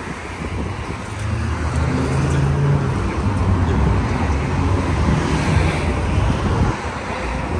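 Road traffic: a motor vehicle's engine running close by over general street noise, growing louder about a second in and easing off near the end.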